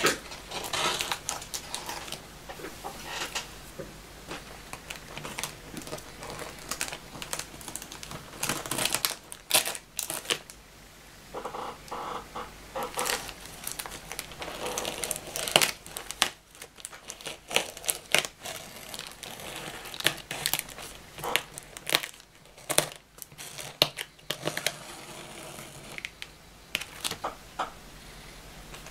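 Clear plastic wrap around a cardboard parcel crinkling and tearing as hands pull at it and cut along the packing tape. The rustles, crackles and short sharp tears come in irregular bursts.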